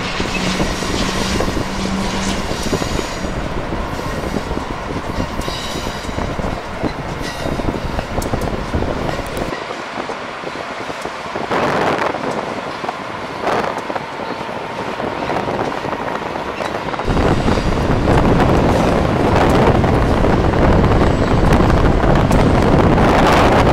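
Amtrak Keystone train rolling past on the rails, its coaches pushed by an ACS-64 electric locomotive at the rear. In the last third, wind buffets the microphone with a heavy rumble.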